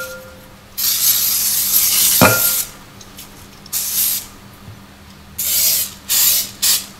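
Aerosol butter-flavored cooking spray hissing into a glass bowl: one long spray of about two seconds, then several short bursts. A single sharp clink about two seconds in.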